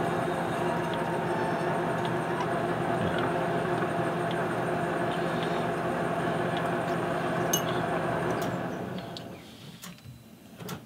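Metal lathe running slowly in back gear, a steady gear whine and hum, while a threading tool takes a light cut inside a stainless steel part. About nine seconds in the motor is switched off and the lathe winds down, with a sharp click near the end.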